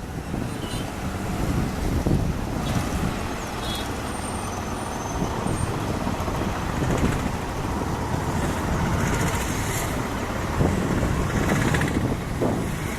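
Boeing 787 jet engines in a loud, steady roar with a deep rumble underneath as the airliner goes by at close range.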